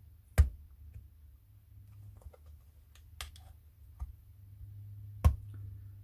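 Small screwdriver prying at the clip-together plastic housing of a fridge fan motor, giving sharp plastic clicks, the two loudest about half a second in and near the end, with a few fainter ticks between, over a low steady hum.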